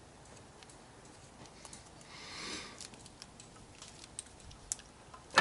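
Faint small clicks and handling noises from hand wire crimpers and wiring as a wire is fed into a butt splice connector and crimped, with a brief soft rustle about two seconds in.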